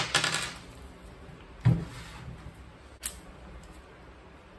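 Metal clinks from tools and small engine parts: a short ringing clatter at the start, a knock a little under two seconds in and a sharp click about three seconds in. The 27 mm nut has just been loosened and is being worked off.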